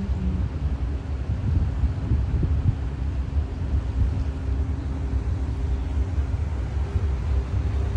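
Low, steady rumble of wind buffeting the microphone on a ferry's open deck, with the faint steady hum of the ship's engines underneath as it moves through thin ice.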